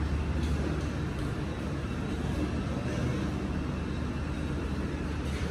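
Steady low background hum and rumble with no distinct events.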